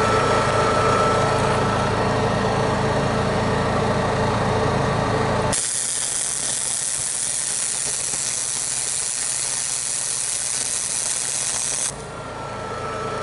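A steady engine hum for about five seconds gives way abruptly to the hiss and crackle of an electric arc welder, welding a nut onto steel pliers jaws. The hiss lasts about six seconds and stops suddenly near the end, and the hum returns more quietly.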